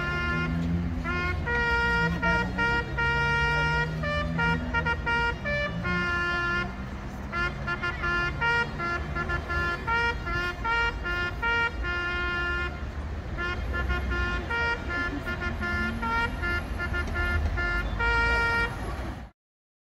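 Car horns honking in long held blasts, several horns of different pitch sounding again and again, over the low rumble of road traffic. The sound cuts off suddenly near the end.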